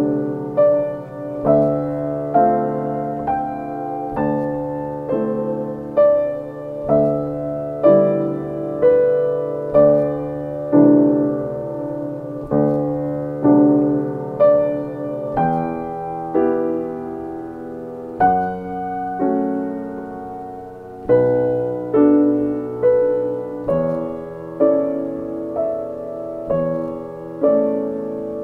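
Background solo piano music: slow, gentle notes and chords struck about once a second, each fading away before the next.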